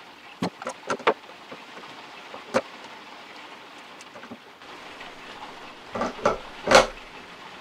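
Metal clicks and knocks as a riflescope is set onto a Dentler scope mount and the mount is handled to test the fit. There are a few light clicks in the first second and a single one about two and a half seconds in. A louder cluster of knocks comes near the end, the loudest about seven seconds in.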